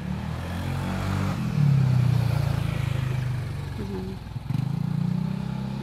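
A motor vehicle's engine running close by, swelling to its loudest about one and a half seconds in, easing off, then rising again near the end.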